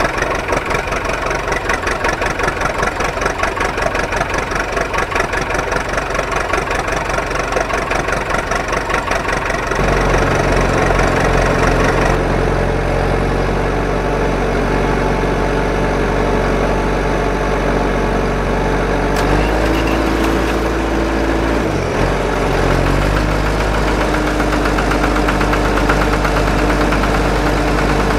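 An engine running with a fast, even chugging; about ten seconds in it settles into a deeper, steadier drone, and a higher hum joins it around twenty seconds in.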